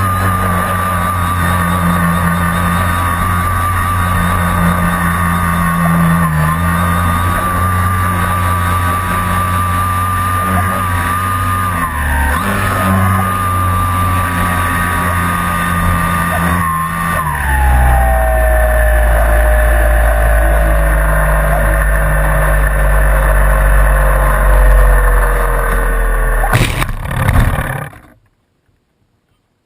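Flyzone Switch RC plane heard from its onboard camera: a steady whistling whine over a low rush of wind, the pitch falling steadily over the last ten seconds as the plane loses speed on a dead-stick approach after the battery ran out. Near the end comes a sharp knock and a brief rough scrape as it lands, then the sound cuts off.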